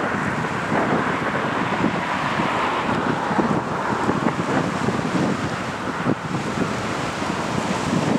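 Turboprop engines of an RAF Lockheed C-130J Hercules running on the ground, a steady engine noise heard through heavy wind buffeting on the microphone.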